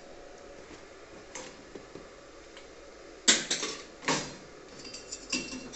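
A few sharp metallic clicks and clinks, the loudest about three seconds in and another a second later, as a stick-welding electrode and its holder are handled on the steel grate of a welding table while a 2.5 mm rod is being fitted.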